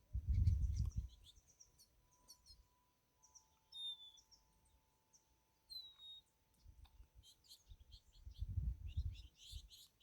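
Small wild birds chirping, with many short high chips and a couple of clear whistled notes. Two low rumbles, one right at the start and one near the end, are the loudest sounds.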